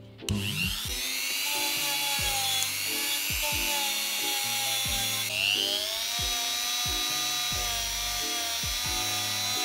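A handheld rotary tool with a small wire brush spinning up to a high-pitched whine and running against a sintered bronze 3D-printed part, cleaning its surface. The pitch dips and climbs again about five seconds in. Background music with a beat underneath.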